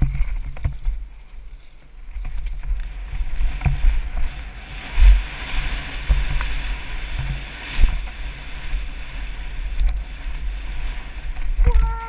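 Downhill mountain bike ridden fast over a dirt forest trail, heard from a helmet-mounted camera: wind rumbling on the microphone, the bike knocking and clattering over bumps, and tyres hissing on loose dirt through the middle. A brief squeal near the end.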